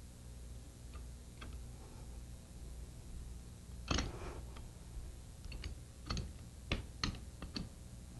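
Metal wrench clicking and clinking on the bolt heads of a sliding-vane pump's head as the head bolts are tightened. A few light ticks come first, then a louder clink about four seconds in, then a run of sharp clicks near the end.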